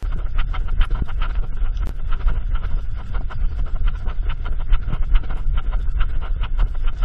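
Bicycle riding along a leaf-covered trail, heard through a bike-mounted action camera: a steady low wind rumble on the microphone, with dense small clicks and rattles from the bike and trail surface.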